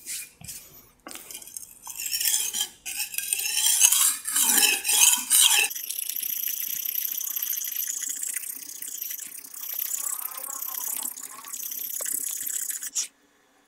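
Steel knife blade scraping across a brick used as a sharpening stone. First come several separate gritty strokes, then a steady, unbroken scraping that cuts off suddenly near the end.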